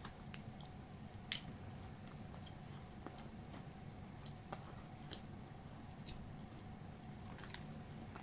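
A person quietly chewing a chocolate-coated biscuit snack, with soft mouth clicks and small crunches. There are a couple of sharper clicks, about a second in and about halfway, over a faint steady hum.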